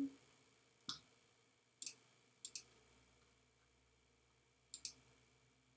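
Computer mouse clicking: scattered short, sharp clicks, several in quick pairs, with pauses between.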